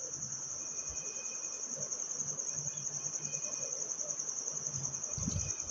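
Crickets trilling steadily in one continuous high-pitched band.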